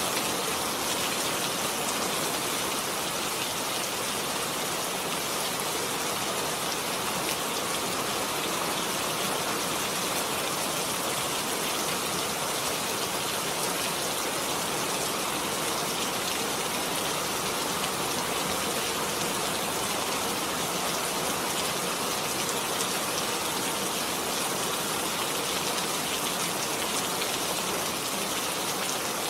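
Heavy rain falling steadily, a dense, even hiss of countless drops on hard surfaces.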